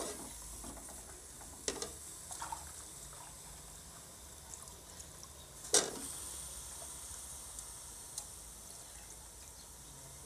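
Potato and eggplant pieces sizzling quietly in hot masala in an aluminium pot, with a few sharp clicks as the steel ladle and the wet pieces hit the pot, the loudest about halfway through.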